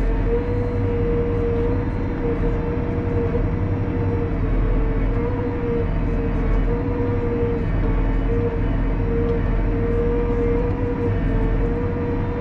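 Valtra tractor engine running steadily under load, driving the hydraulics of a Kesla 144ND timber crane as the boom is moved, heard from inside the cab: a low engine drone with a steady whine above it.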